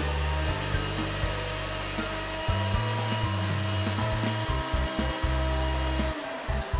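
Electric blender running steadily, grinding chopped onion, chillies, tamarind and whole spices with vinegar and water into a smooth masala paste.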